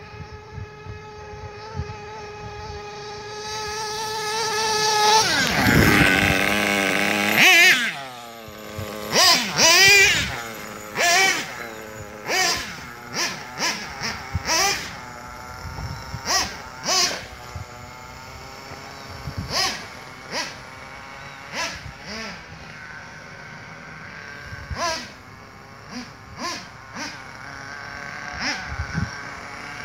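Redcat Earthquake 3.5 1:8-scale RC truck's 3.5 cc nitro engine running at a steady high pitch, growing louder and then dropping in pitch as the truck passes about six seconds in. After that the engine is revved in short bursts, one every second or two, as the truck is driven.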